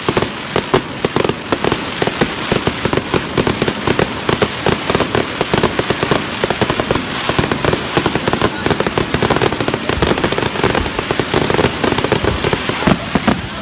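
Aerial fireworks going off in a rapid, continuous barrage of bangs and crackles, many per second.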